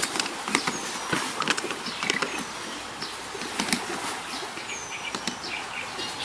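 Light clicks and rustling from hands handling carp rig tackle while a rig is being tied, scattered unevenly. Short falling bird calls sound a few times in the background.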